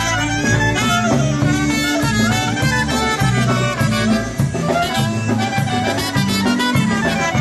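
Live polka band playing a concertina polka: concertina carrying the tune over brass, bass and drums.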